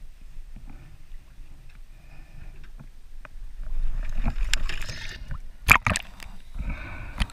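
Water splashing and sloshing close to a diver's camera at the side of a small aluminium boat, with a few sharp knocks near the end as the diver goes under.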